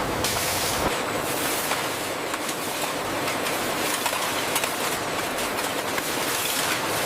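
Bottling-line machinery running steadily: a continuous mechanical noise with a dense patter of small clicks and clinks.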